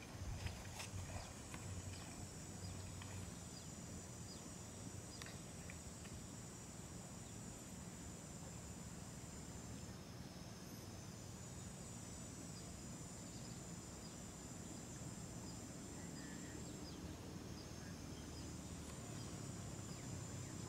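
Insects buzzing steadily in a high-pitched chorus that stops briefly twice and starts again, over a low steady background hum, with a few faint clicks in the first few seconds.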